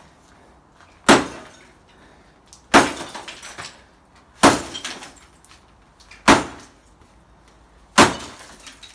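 Sledgehammer striking concrete five times in an even rhythm, a blow about every one and three-quarter seconds. Each sharp crack is followed by a brief clatter of broken pieces.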